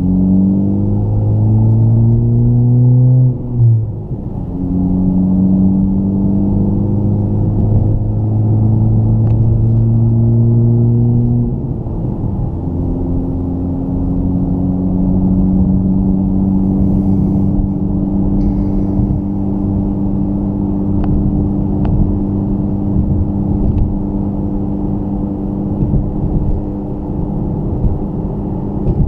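Honda Civic Type R FK8's turbocharged 2.0-litre four-cylinder running through a Tomei titanium muffler, pulling up through the gears with a drop in pitch at each of two upshifts, about three and a half seconds in and again about twelve seconds in. Afterwards it settles into a steady, low exhaust drone at cruising speed.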